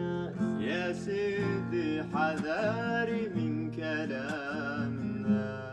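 A man singing a long, wavering melismatic line without words in Gulf Arabic style, over a plucked string accompaniment.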